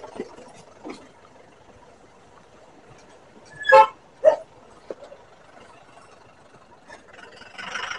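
Low road and engine noise from a scooter riding downhill, with two short, loud horn toots about four seconds in. A steady vehicle horn starts near the end.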